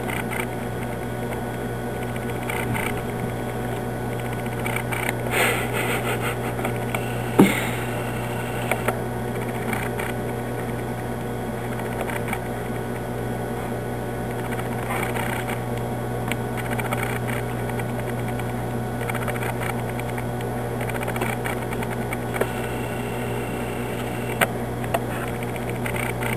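A steady low mechanical hum, with a few faint clicks and taps here and there.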